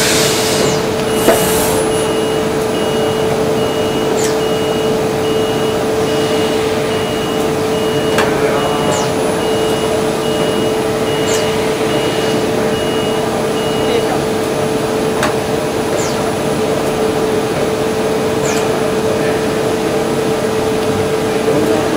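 Okuma GA-26TII CNC angular cylindrical grinder running: a steady hum with one constant tone. A high electronic beep repeats about once a second until about fourteen seconds in, and there are a few short clicks.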